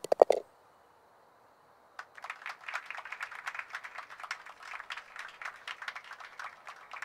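A few quick, loud knocks at the very start, then from about two seconds in a small crowd's scattered applause, dense irregular claps.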